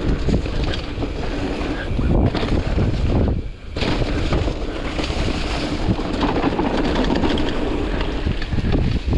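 Wind rushing over the microphone of a camera riding on a Rockrider AM100 hardtail mountain bike descending a trail, mixed with its tyres rolling over dry leaves and dirt. The noise drops away briefly about three and a half seconds in.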